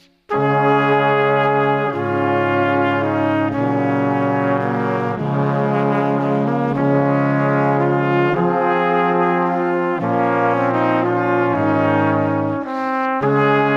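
Background music: a slow melody of long held notes, changing every second or two, starting a moment in after a brief gap.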